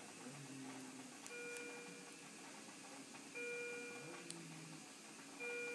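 Hospital bedside monitor alarm chiming three times, about every two seconds. Each chime is a short held tone of a few pitches sounding together.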